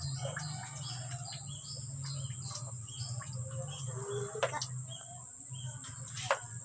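Small birds chirping in quick, repeated short calls over a steady low hum and a steady high hiss, with sharp clicks about four and a half and six seconds in.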